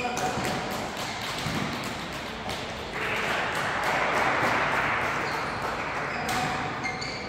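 Badminton rally sounds: shuttlecock hits and short shoe squeaks on the court floor, echoing in a large hall. About three seconds in, the rally ends and a few seconds of spectators clapping follow, the loudest part, fading before the end.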